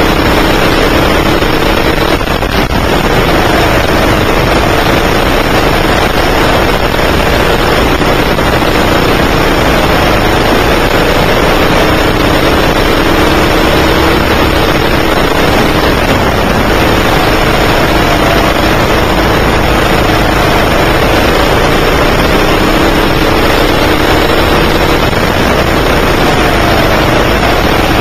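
9 hp go-kart engine running at racing speed, heard loud from on board the kart, its pitch rising and falling again and again as the throttle is opened and lifted, over a steady dense hiss.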